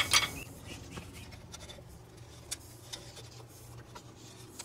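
Faint scraping and a few light metal clicks as a large bolt is run down by hand through a stainless battery tie-down bar, with a sharper click about two and a half seconds in.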